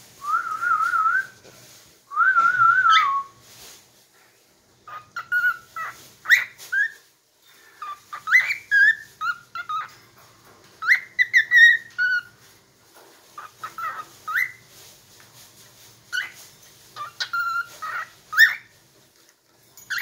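Cockatiel whistling its song: two long warbling, trilled phrases near the start, then a run of short chirps and whistled notes with short pauses between them. It is a song the bird has picked up from hearing a companion bird sing.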